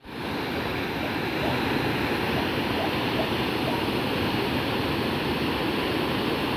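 Muddy floodwater in a swollen creek rushing and churning in white water over a low drop, a steady sound of fast-moving water.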